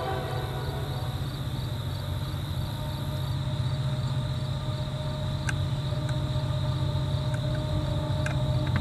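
Low diesel rumble of an approaching Norfolk Southern EMD SD70M locomotive's two-stroke V16, still out of sight, growing slowly louder, with the tail of its horn chord dying away just after the start.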